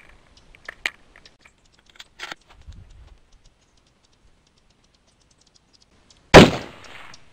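A few light clicks as the bolt of a Savage 12 FV 6.5 Creedmoor rifle is worked, then a single loud rifle shot near the end, its report dying away over about a second.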